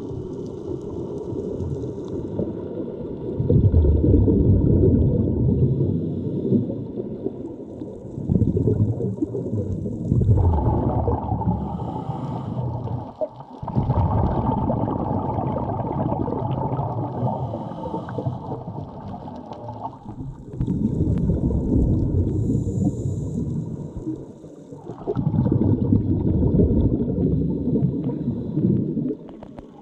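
Low, dull water noise from swimming and snorkeling, picked up by a GoPro camera, rising in louder surges every few seconds.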